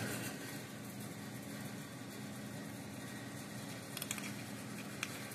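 Faint steady background hum of a workshop, with a few small clicks about four and five seconds in as a circuit board and components are handled on the bench.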